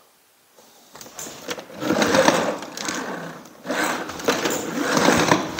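Spring-loaded retractable compressed-air hose reel winding its hose back in, a fast mechanical rattle of the hose and drum. It starts about a second in and dips briefly about three and a half seconds in.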